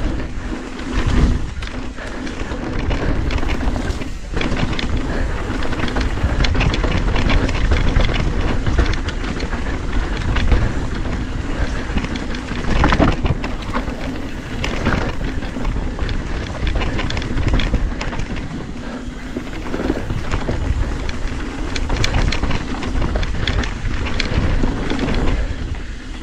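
Wind buffeting the camera microphone during a fast descent on a YT Decoy electric mountain bike, with the tyres running over dirt and the bike rattling and knocking over bumps many times.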